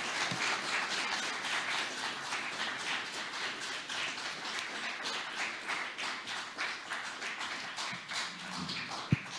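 Audience applauding, a dense patter of many hands clapping that thins out near the end. A single sharp knock comes just before the end.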